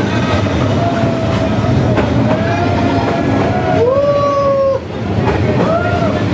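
Passenger train passing at very close range: the steady, loud rumble and rattle of the carriages going by, with a drawn-out high squeal about four seconds in and a shorter one near the end.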